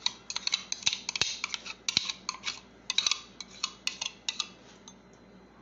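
A spoon scraping and tapping against the inside of a clear plastic bowl, knocking chopped vegetables out into another bowl: a quick, irregular run of clicks and scrapes that dies away near the end.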